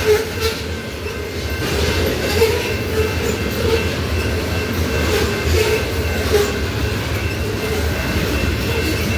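Loaded covered hopper cars of a grain train rolling past close by: a steady low rumble with the steel wheels clacking over rail joints.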